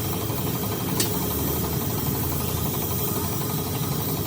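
An engine idling steadily, with one sharp click about a second in.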